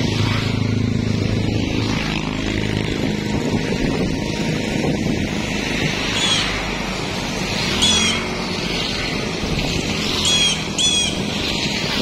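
Steady motor-traffic noise from nearby roads, with a vehicle engine hum strongest in the first few seconds. A bird gives four short, sharp calls in the second half.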